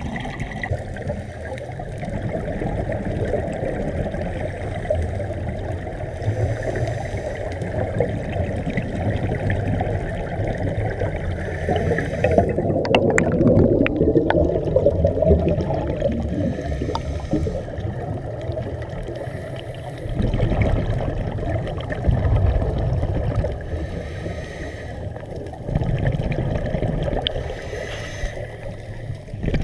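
Water sloshing and gurgling, a steady muffled rush with most of its sound low down, growing busier and louder about thirteen seconds in.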